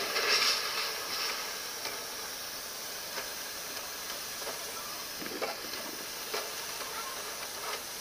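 Water from a fire hose spraying onto burning roofing, hissing and steaming. The hiss is louder through the first second, then settles to a steady level.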